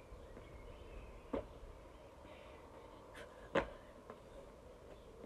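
A boy's trainers landing on a block-paved driveway during repeated jumps: a sharp thud a little over a second in and a louder one about two seconds later.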